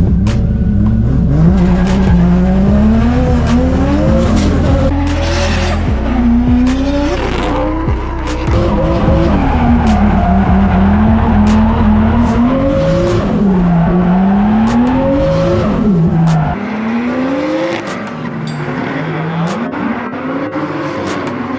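Drift car's engine revving hard, its pitch rising and falling every second or two as the car slides through a drift run, with tire squeal. Heard from inside the cabin at first, then from trackside after about 16 seconds.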